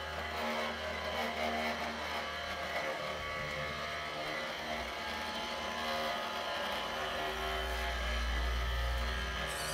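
A radio-controlled model construction vehicle running steadily, with motor and gear noise. A deeper low hum swells from about seven and a half seconds in.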